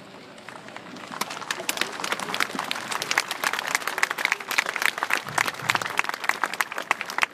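Seated crowd applauding: many hands clapping, starting about a second in, building to a dense patter and dying down near the end.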